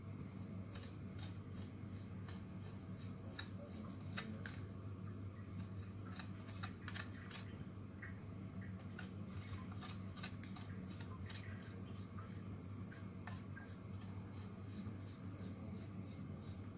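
Chocolate being shaved over a cake in short, crisp scraping strokes, two or three a second with brief pauses, over a low steady hum.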